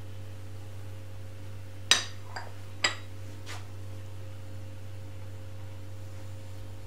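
Two sharp clinks of kitchenware knocking against a nonstick frying pan, about two seconds in and again a second later, followed by a couple of lighter taps, over a steady low hum.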